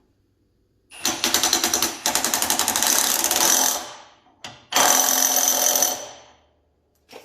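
Milwaukee impact wrench hammering in two bursts: a long one of about three seconds, then a shorter one of just over a second.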